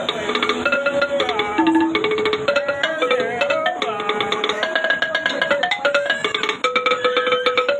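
Music: a melody of held notes stepping up and down over fast, steady clicking percussion.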